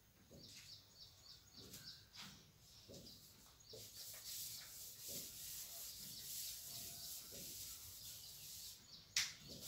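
Whiteboard duster rubbed back and forth across a whiteboard, erasing marker writing: a faint wiping hiss that becomes steady about four seconds in. A short, sharp, louder sound comes near the end.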